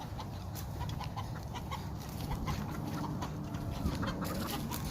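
Game chickens clucking softly, with scattered light clicks and taps throughout.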